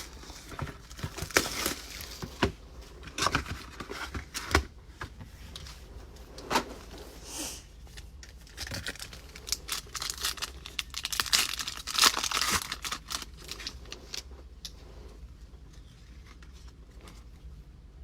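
Packaging of 2019 Panini Elite Extra Edition baseball cards being torn open and crinkled by hand, with irregular clicks and handling noises between several spells of crinkling.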